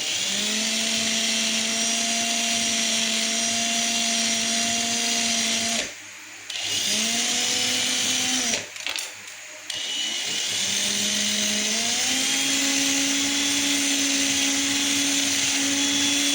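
Battery-operated cordless drill spinning a grinding-stone bit to sharpen a kitchen knife: a steady motor whine over a hiss. It stops briefly twice, about six and nine seconds in, then starts again and rises in pitch as it speeds up.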